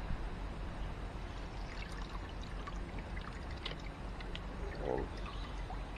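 Acid pouring and trickling out through the drilled holes of a perforated inner bucket as it is lifted out of the outer plastic bucket of the acid bath.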